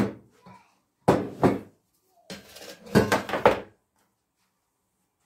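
A metal tray knocking and clattering as it is set down on an electric stove top: a sharp knock at the start, then two bunches of knocks and scrapes about a second and three seconds in.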